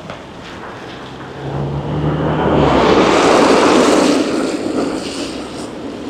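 A road vehicle passing close by on the street, its tyre and engine noise swelling to a peak about halfway through and then fading away.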